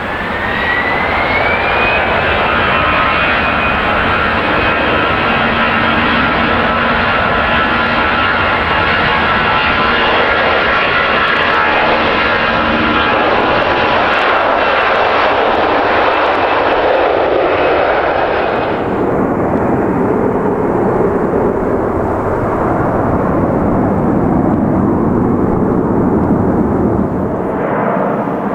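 Jet airliner's engines at high power: a whine rises in pitch over the first two seconds, then holds steady with several whining tones over loud engine noise. About two-thirds of the way through the high whine drops away suddenly and a lower rumble carries on.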